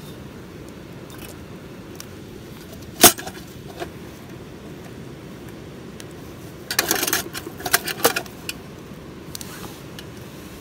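Metal clicks and rattles of a hurricane lantern being handled: one sharp click about three seconds in, then a cluster of clinks and rattles about two-thirds of the way through.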